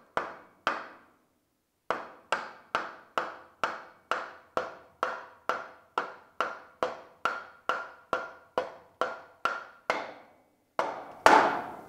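Rubber mallet tapping the end of a mud motor's drive shaft tube to drive the shaft coupler onto the engine's output shaft. The blows come in a steady run of about three a second, each leaving a short metallic ring, with one harder blow near the end.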